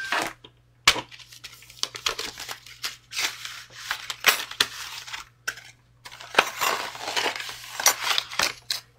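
Clear plastic die-storage sheet with thin cutting dies on it being handled: crinkly plastic rustling in two longer stretches, with scattered sharp clicks and taps.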